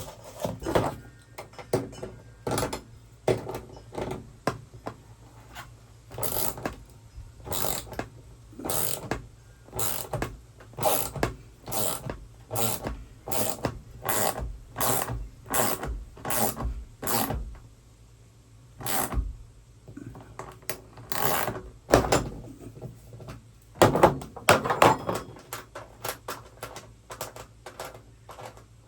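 Wrenches turning the nut on a homemade bolt-and-nut setting tool, drawing a threaded insert into a drilled hole. It makes a series of metallic clicks and scrapes, about one stroke a second, with a brief lull partway through and a louder flurry of strokes near the end.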